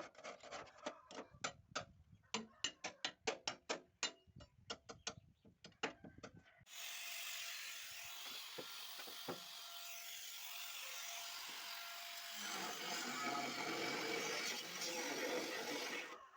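Metal repair work on a bent roller: a quick, irregular series of sharp knocks, several a second, for about six and a half seconds, then a steady hissing noise with a faint steady tone in it, getting louder a few seconds before the end.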